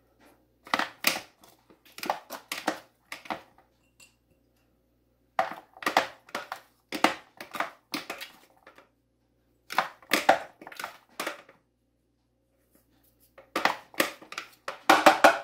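Broccoli florets being seasoned with salt and pepper and tossed in oil in a bowl: four spells of crunchy, crackly clicking with short pauses between them.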